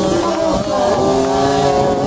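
Scooter engine revving hard through a burnout, its pitch wavering and then held high and steady from about a second in, while the rear tyre spins on the tarmac.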